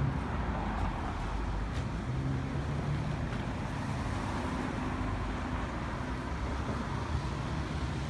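Steady rumble of road traffic passing on the adjacent street, with wind buffeting the microphone.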